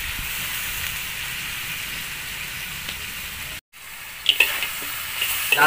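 Chopped meat and offal sizzling steadily in a metal wok over a wood fire. After a brief break near the end, a metal spatula clinks and scrapes against the wok as the meat is stirred.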